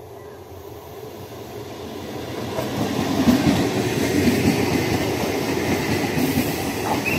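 Electric multiple unit (EMU) local train approaching and passing close by: the rumble of its wheels on the rails grows louder over the first three seconds, then holds steady as the coaches run past.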